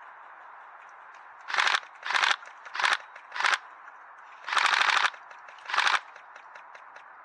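Airsoft rifle firing about six short full-auto bursts at close range. The longest burst comes about five seconds in.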